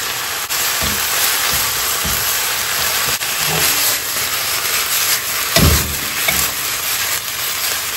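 Chicken, ginger, wood ear mushrooms and onion sizzling in a hot wok over high heat while the wok is shaken and tossed. A few dull thumps about one, two and five and a half seconds in.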